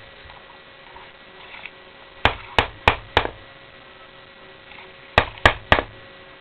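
Knocking: a round of four quick knocks, then after a pause a round of three.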